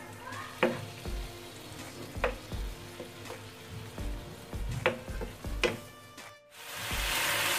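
Chicken cooking in yogurt and spices in a frying pan, stirred with a wooden spatula that knocks against the pan a few times. The sound cuts out briefly about six seconds in, then louder sizzling starts.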